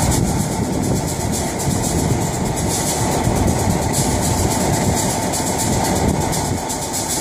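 Steady mechanical rumble of a diesel locomotive and the turntable carrying it as the turntable slowly rotates.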